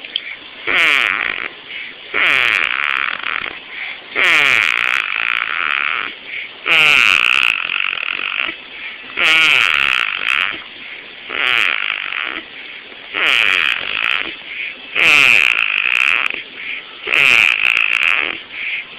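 A girl snoring in her sleep: a snore on each breath about every two seconds, each one dropping in pitch as it goes.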